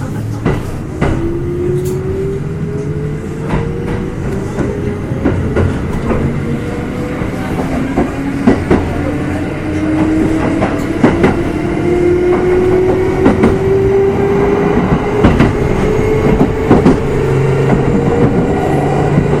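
Kintetsu 2610 series electric train accelerating, heard from aboard a motor car: the traction motor whine climbs steadily in pitch and grows louder, with wheels clicking over rail joints.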